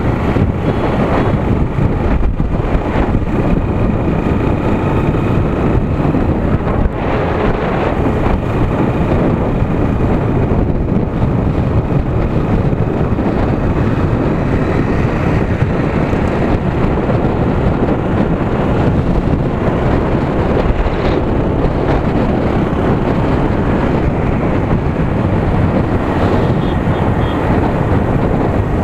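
Wind rushing over the microphone while riding a motorcycle at a steady road speed, with the bike's engine and road noise running underneath.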